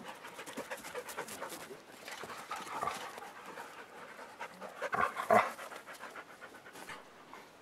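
Dogs panting rapidly and heavily as they play, with a louder, sharper sound about five seconds in.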